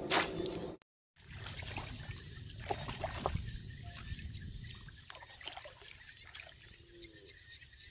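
Shallow muddy water sloshing and trickling, with scattered small splashes, as a woven bamboo plunge basket is pressed into a flooded rice-field channel and hands work at it. The sound cuts out completely for a moment about a second in.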